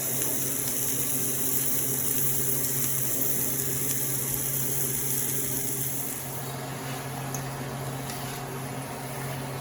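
Onions, zucchini and mushrooms sizzling in garlic butter in a skillet: a steady hiss that drops off about six seconds in, over a steady low hum.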